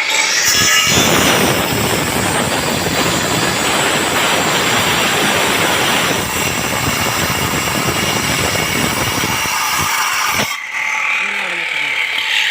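Concrete cutting machine working into a concrete slab: a loud, rough grinding that starts about half a second in and stops suddenly after about ten seconds.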